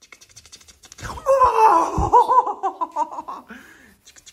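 A baby laughing: a run of high-pitched, wavering squeals and giggles starting about a second in and lasting about two seconds, with a low bump in the middle. Quick scratching of fingers on a blanket is heard before and after the laughter.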